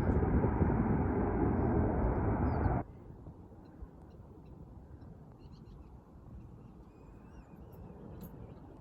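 Jet airliner noise, a loud steady rush, that cuts off abruptly about three seconds in, leaving a faint outdoor background with a few short, high chirps.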